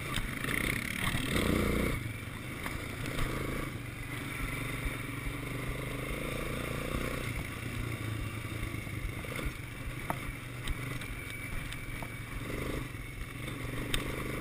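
Quad bike engine running steadily at low speed over rough ground, with occasional knocks and rattles as the bike bounces.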